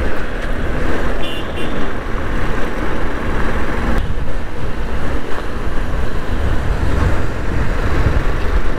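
Wind rumbling on a motorcycle-mounted camera's microphone while riding, with the motorcycle's engine and tyre noise on a rough, broken road underneath. A brief high-pitched beeping sounds about a second and a half in.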